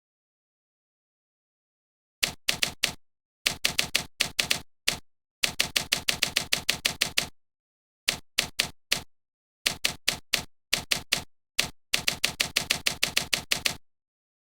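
Rapid, sharp mechanical clicks in uneven bursts, like keys being struck, at about seven strokes a second, with dead silence between the bursts. The first burst comes about two seconds in.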